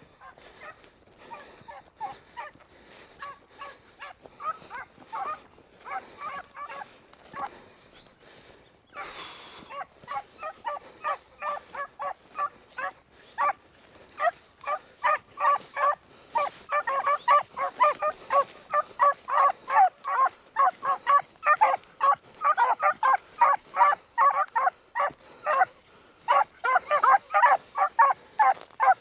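Beagles baying on a rabbit's trail: a rapid string of short, repeated barks, faint at first and much louder from about halfway through.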